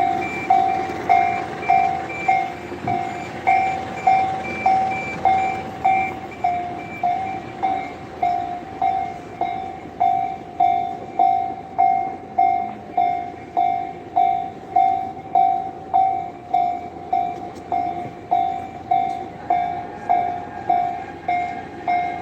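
Japanese railroad-crossing warning bell ringing steadily, an electronic ding repeating about one and a half times a second.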